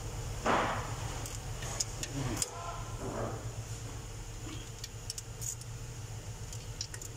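Socket wrench on water pump bolts being given a final check for tightness: scattered small metallic clicks and clinks. A brief rush of noise comes about half a second in, all over a steady low hum.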